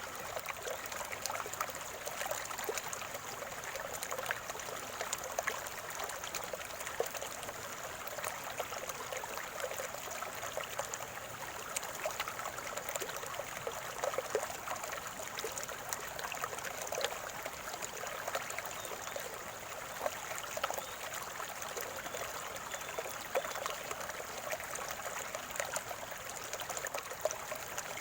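Small stream trickling and gurgling over stones, a steady burble of water with many small splashes and no let-up.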